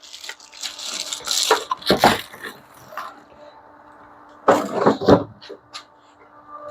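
Rustling of packaging and parts being handled during unboxing, with a few sharp knocks as pieces are set down or bump together, the loudest pair a little past the middle.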